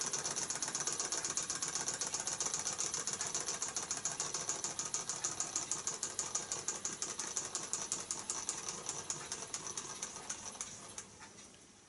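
Meccano toy steam engine running: a fast, even ticking from its cylinder and crank with a steady steam hiss over it, fading away over the last few seconds.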